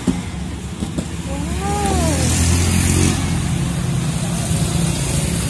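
A motor vehicle's engine running on the street, its steady rumble growing louder towards the middle as it passes. A short tone rises and falls about two seconds in, and there are two light knocks, at the start and about a second in.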